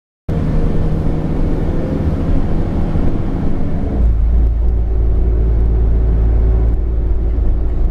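DAF DB250 double-decker bus under way, its engine and road rumble heard from inside the lower deck. The sound starts abruptly a moment in, and about four seconds in it turns into a heavier, deeper rumble with less of the engine's higher tone.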